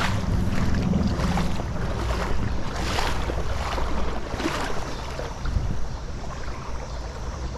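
River current rushing, with wind rumbling on the microphone and three brief louder noisy swells.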